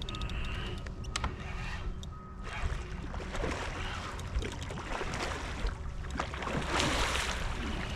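Water sloshing and splashing around a kayak, over a steady low rumble, with a louder splashy rush about seven seconds in.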